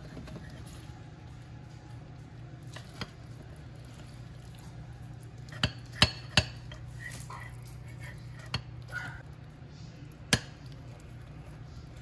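Metal spatula clinking and scraping against the ceramic insert of a Crockpot slow cooker while cutting out a portion of enchilada casserole: a handful of sharp clinks, three in quick succession about halfway through, over a steady low hum.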